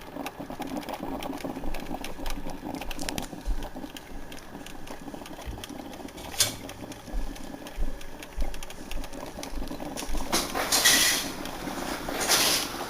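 A 1984 Black & Decker thermal carafe drip coffee maker brewing: rapid crackling and sputtering as the heater pushes water up. Two louder bursts of hissing steam come near the end.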